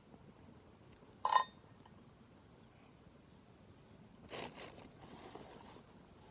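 A single sharp clink of a hard object, with a brief ring, about a second in. A softer scrape or rustle follows about three seconds later, against a quiet background.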